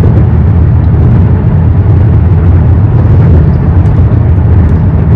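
Car driving at a steady speed: an even, loud low rumble of road and wind noise, with no changes or sudden sounds.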